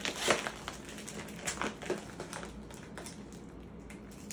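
Cookie packaging crinkling and crackling as a cardboard cookie box and its inner bag are pulled open by hand: irregular crackles and rustles, a few louder ones near the start and around the middle.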